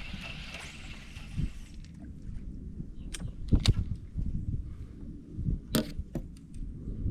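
Uneven low rumble of wind buffeting the microphone outdoors, with a few sharp clicks and knocks about three seconds in and again near six seconds.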